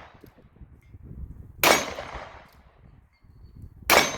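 Two shots from a Rock Island Armory Model 206 .38 Special revolver, a bit over two seconds apart, each with a short echoing tail.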